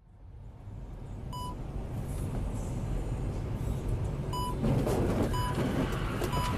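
Steady low engine and road rumble inside a truck cab at highway speed, with four short, high electronic warning beeps at uneven gaps while a vehicle cuts in close ahead.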